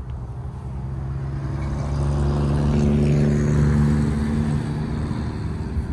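A car driving past with a low, steady engine note, growing louder to a peak about three to four seconds in and then fading.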